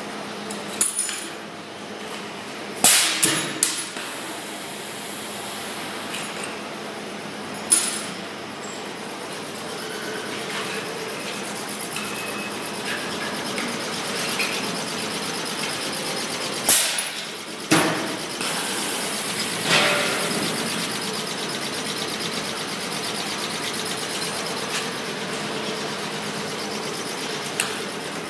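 Pneumatic punch press punching aluminium sliding-window profiles: sharp metallic clunks of the die at irregular intervals, a quick group of them near the start and several more later, over a steady low hum.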